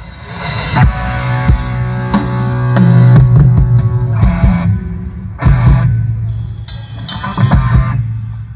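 Rock music with a drum kit, bass and electric guitar: sharp drum hits every second or so over sustained bass notes.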